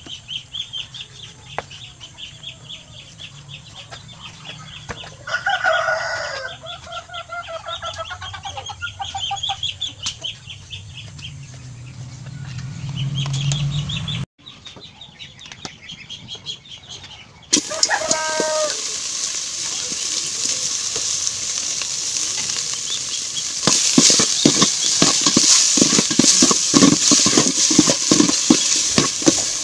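Chickens clucking and calling while pork is cut. After a cut, pork belly cubes sizzle in an aluminium pot as they start to fry, with a ladle stirring and scraping; the sizzling grows louder about two thirds of the way through.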